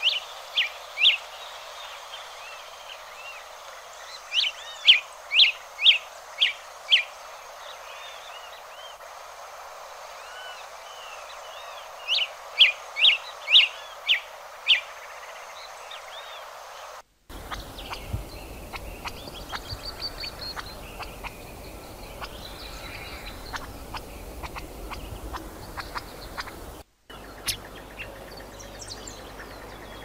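Hepatic tanager giving short, sharp call notes in quick runs of three to seven, over a steady background hiss. From a little past halfway, fainter, busier chirping takes over.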